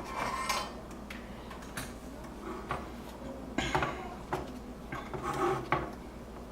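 Small hand tools and parts being picked up and set down on a workbench: a string of light, irregular clicks and clinks.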